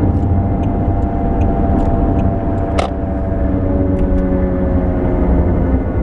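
Road and engine noise inside the cabin of a 2006 Pontiac G6 at highway speed: a steady low rumble whose tones slowly fall as the car slows under the brakes, fitted with new front rotors. A single sharp click about three seconds in.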